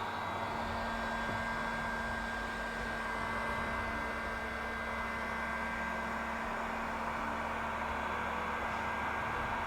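Steady blowing hiss of the heating tool shrinking a large heat-shrink sleeve over a submersible pump cable joint, running without a break.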